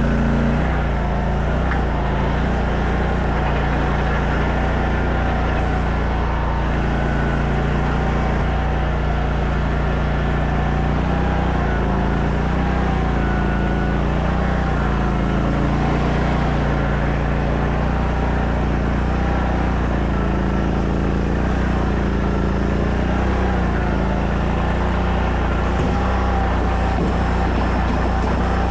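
Small engine of a stand-up mini skid steer running steadily, with a whine above it that rises and falls in pitch as the machine is worked.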